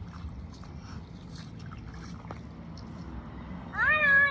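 Low rumble with faint splashes and clicks, then near the end a loud, high, drawn-out cry that rises and then holds steady.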